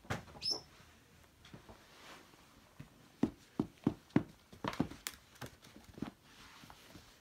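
Shiba Inu puppy tussling with a plush slipper: a quick run of about nine soft knocks and thumps from its paws and the slipper hitting the floor, bunched in the middle, with a short high squeak near the start.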